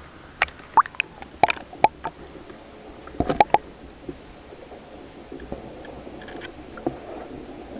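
Water slapping and knocking against an SJCAM SJ5000X action camera's waterproof housing as it dips under the surface: a string of sharp clicks and splashes over the first few seconds, then a muffled underwater rumble.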